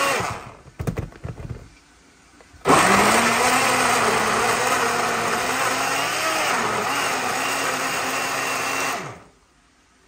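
Countertop blender grinding sweet pepper, hot pepper and onion into a puree. The motor stops about half a second in, a few light knocks follow, and it starts again near three seconds, spinning up and running steadily for about six seconds before stopping.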